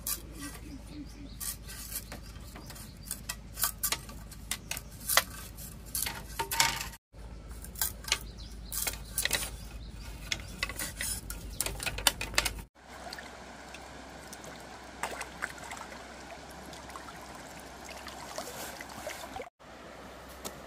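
A machete working thin bamboo strips: a run of sharp, irregular clicks, knocks and scrapes as the blade splits and shaves the bamboo. Later comes a steady rush of flowing river water.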